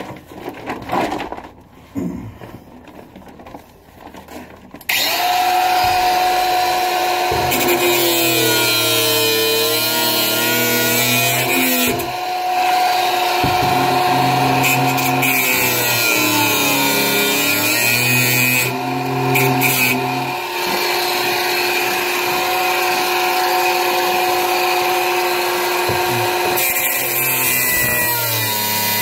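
A handheld power tool cutting off old bolts: a few knocks first, then from about five seconds in it runs steadily, its pitch sagging and recovering several times as it is pressed into the cut.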